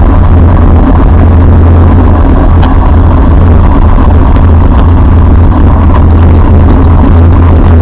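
Steady, loud wind rumble and road noise on a bicycle-mounted camera riding along, with a few light clicks or rattles partway through.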